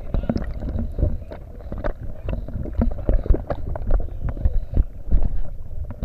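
Rushing river water splashing and knocking against the camera in whitewater, with a low rumble and many irregular sharp knocks.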